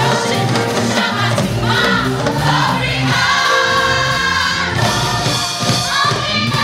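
Gospel choir singing live into microphones, women's voices in front, over a live band with bass notes and drums.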